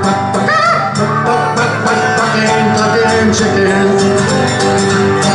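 Live acoustic folk-country music: a steel-string acoustic guitar and piano playing, with a man singing. Long held notes fill the second half.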